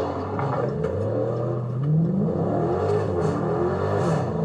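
Dodge Scat Pack's 392 HEMI V8 accelerating: the engine note climbs about two seconds in, falls back, then climbs again near the end.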